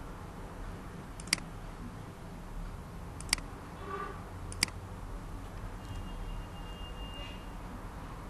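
Three sharp single clicks of a computer mouse, well apart, over a steady low room hum.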